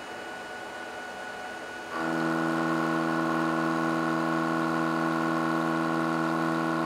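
Metal lathe spindle running, then about two seconds in the carbide-insert tool starts an interrupted turning cut on square steel stock in a four-jaw chuck. The result is a loud, steady, buzzing chopping noise as the four corners strike the top of the tool on every revolution.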